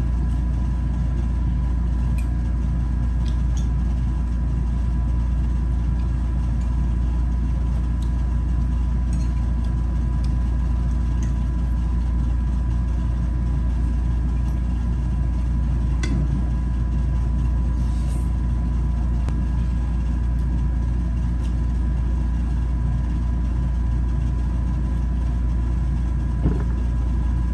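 Steady low rumble with a faint steady whine above it, and a few light clicks of cutlery against dishes.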